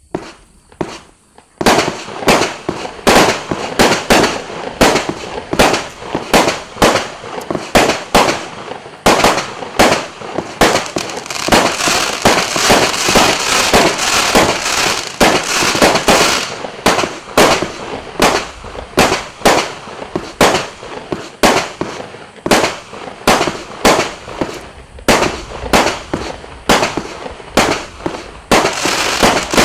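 A multi-shot consumer fireworks battery (a 256-shot cake) firing shot after shot, starting about two seconds in. The sharp reports come about two to three a second over a steady crackling hiss.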